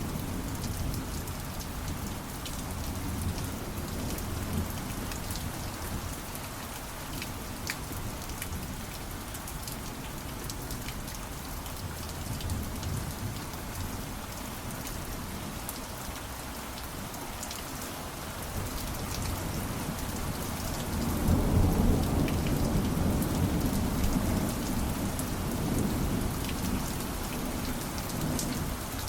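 Steady rain falling, with scattered sharp drips, and a rolling rumble of distant thunder that builds from about two-thirds of the way in, peaks, then slowly dies away.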